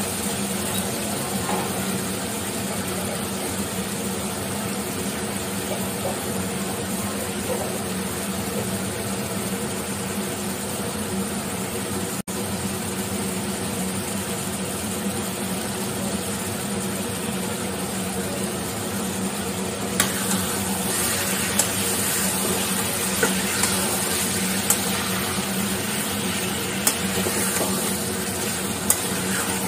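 Vada pieces sizzling in masala in an aluminium kadai while a slotted metal spatula stirs them, scraping and clicking against the pan. The frying grows louder about two-thirds of the way through, after a tomato-onion paste goes in.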